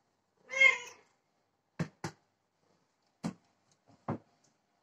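A cat meows once, short and loud, then four short knocks follow over the next few seconds.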